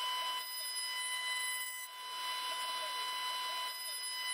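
CNC router spindle running at 20,000 RPM with a steady high whine, its 1/2-inch ball-nose bit cutting Douglas fir in the finishing pass on a rotary axis. The cutting noise dips briefly about two seconds in and again near the end.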